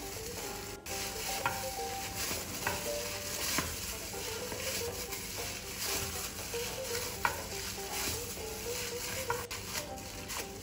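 A hand in a thin plastic glove kneading soft yeast dough in a plastic bowl: a steady rustling noise with scattered small clicks. Faint background music runs underneath.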